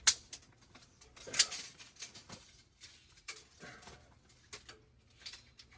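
A few sharp clicks and light knocks, with two louder clicks about a second and a half apart near the start, then fainter taps and scrapes.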